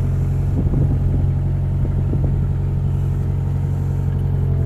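A vehicle engine running steadily at an even pitch, with a few faint knocks about a second and two seconds in.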